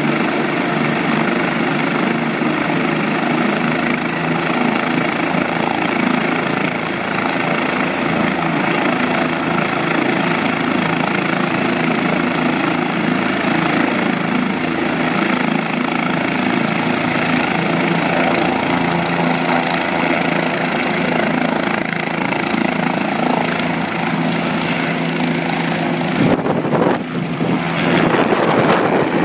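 Bell JetRanger turbine helicopter running on the ground, a steady turbine whine with a high whistle over the rotor's drone; the whistle rises slightly about two-thirds of the way through. Near the end the helicopter lifts off, and the steady tones give way to a louder rush of rotor downwash buffeting the microphone.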